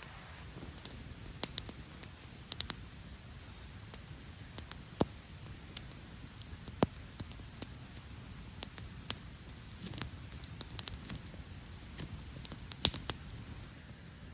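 Campfire crackling: irregular sharp pops and snaps, some in quick clusters, over a low steady background.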